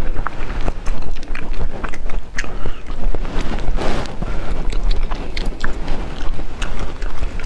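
Close-miked mouth sounds of raw sweet shrimp being eaten: wet chewing and lip smacks, with many short sharp clicks and a denser wet stretch about four seconds in.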